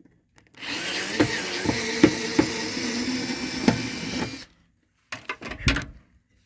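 Power drill running steadily for about four seconds, with several sharp knocks along the way; a few short clacks of metal parts follow near the end.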